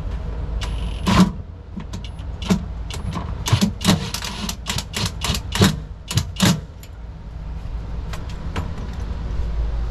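A string of sharp knocks and metallic clanks, about eight over five seconds, from hand tools and hardware as a power assist steering pump is fastened into a boat's bilge, over a steady low hum.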